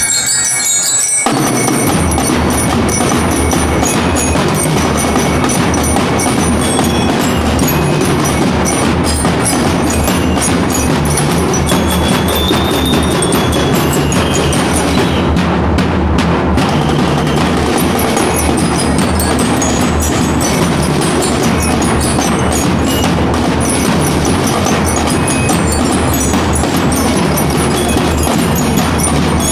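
Drum and lyre corps playing: snare drums and bell lyres together, a loud, dense marching-band sound that starts about a second in.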